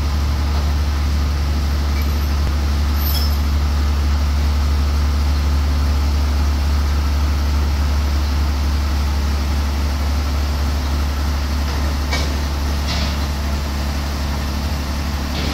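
Diesel engine of an 8060 rice combine harvester running at a steady low hum as the machine reverses, with a couple of faint ticks near the end.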